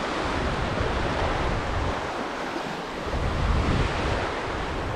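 Small waves breaking and washing over the sand in shallow surf, a steady rushing wash with wind rumbling on the microphone, the rumble strongest about three and a half seconds in.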